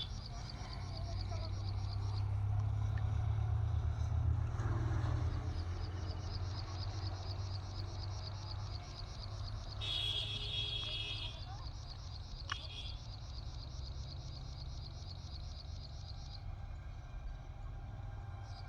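Outdoor ambience: a steady low rumble, with an insect chirping high in a fast, even rhythm that stops near the end, and a brief higher call about ten seconds in.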